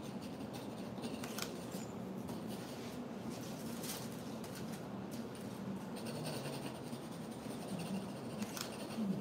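A stylus scratching a drawing into a waxed mimeograph stencil laid over sandpaper, a continuous dry scraping. There is a short crackle of the stencil sheet about four seconds in.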